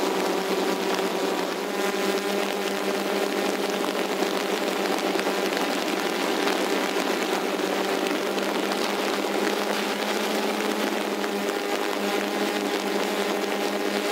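DJI Phantom 2 quadcopter's four electric motors and propellers hovering and flying with a steady buzzing whine made of several held pitches over a hiss, heard close up through the onboard camera's microphone.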